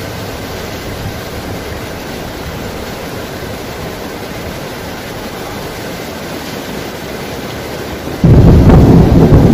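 Steady rushing water, then about eight seconds in a sudden, very loud clap of thunder that goes on rumbling heavily.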